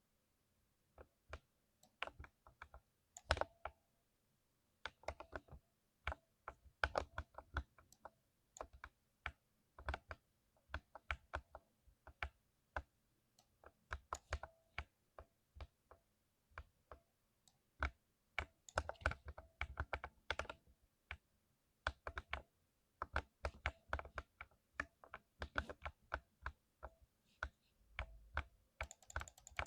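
Typing on a lubed 60% mechanical keyboard: irregular runs of key presses with short pauses between bursts.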